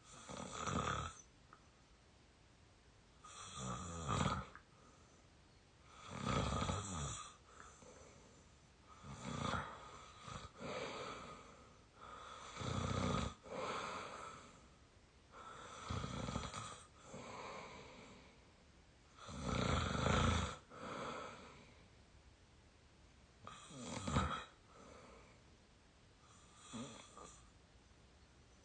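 A 22-year-old snoring in heavy sleep: a loud snore on each breath, about every three to four seconds, most followed by a quieter trailing breath.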